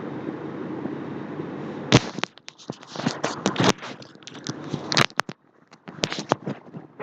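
Steady background hum, then from about two seconds in an irregular run of sharp clicks and taps, typical of computer keyboard and mouse clicks while working in CAD assembly software.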